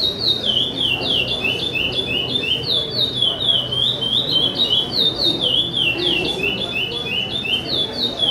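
Chopi blackbird (pássaro-preto) singing its charrua song: a rapid, unbroken run of short whistled notes, mostly falling in pitch, about four to five a second.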